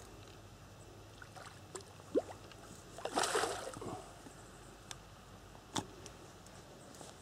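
Something entering the pond water with a splash about three seconds in, lasting about a second, with rings spreading across the surface afterwards. Just before it comes a brief rising squeak, and a few sharp clicks follow.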